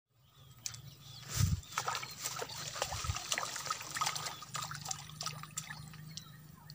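Small tilapia splashing and snapping at the water surface: a run of quick, sharp splashes and slurps, the biggest about a second and a half in.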